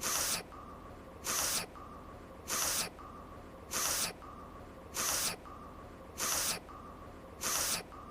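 A woman's voiced anime character sniffling through her nose in short, even sniffs, seven of them, about one every 1.2 seconds, repeating like a loop.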